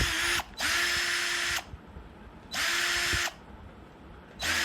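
INGCO CIDLI20025 20V cordless impact drill run in short trigger pulls of about a second each, its motor whining at a steady pitch, winding up at each start and spinning down at each release; a burst ends just after the start, two full bursts follow, and a brief one comes near the end.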